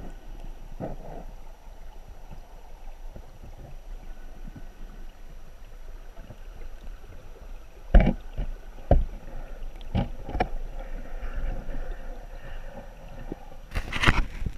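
Flowing creek water heard underwater through a camera's waterproof housing, a steady muffled rush. Several sharp knocks come in the second half, the loudest about eight seconds in and a cluster near the end.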